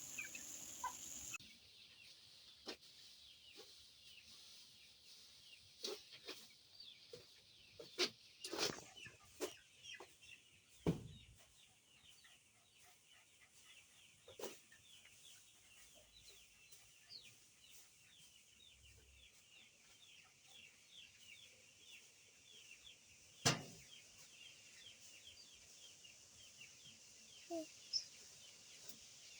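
Free-range chickens clucking and cheeping faintly, with a few sharp knocks now and then.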